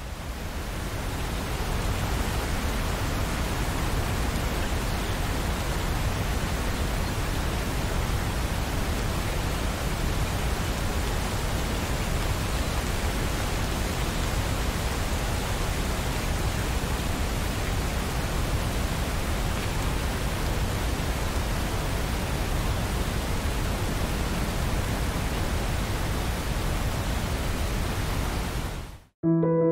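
Steady rain, an even hiss with no distinct drops standing out. It fades in over the first couple of seconds and cuts off suddenly near the end.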